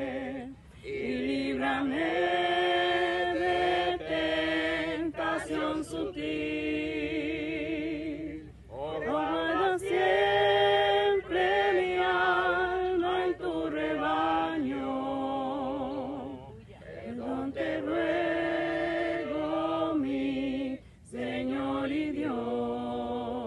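A small group of people singing a Spanish hymn unaccompanied, in long held phrases with a wavering vibrato and short breaths between them.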